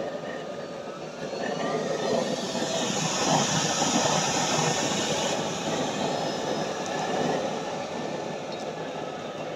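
Blower-fed waste-oil burner running full: a steady roar of flame and fan. It swells louder about two seconds in, with a brighter hiss until about five seconds, then eases slightly.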